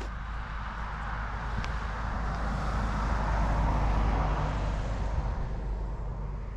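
A vehicle passing by: a rushing road noise that swells to a peak about halfway through and then fades away.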